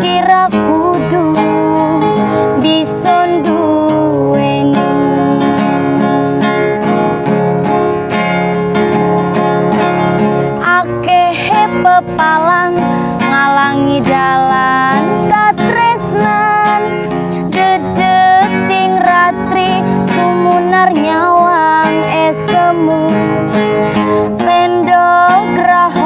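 A woman singing a Javanese love song over a strummed acoustic guitar, her voice gliding and ornamenting the melody over steady chords.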